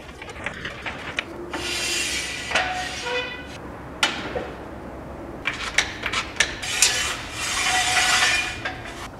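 Aluminium floor jack being pumped by its long handle to lift a car, with rubbing, creaking strokes and sharp metal clicks; near the end come more metal clinks as a jack stand is set in place.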